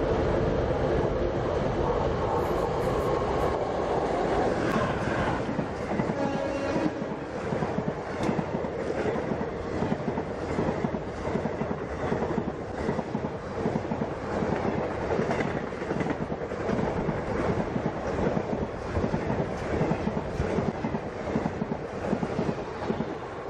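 Indian Railways express passenger train passing at speed. A steady humming tone runs for about the first seven seconds, then the coaches' wheels clatter rhythmically over the rail joints as the carriages rush by.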